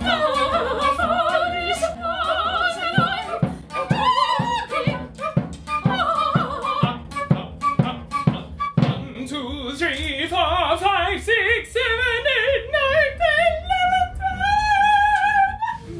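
Operatic singing with wide vibrato over instrumental accompaniment, with a steady low beat in the first half. From about nine seconds a single voice climbs step by step to a long held high note near the end.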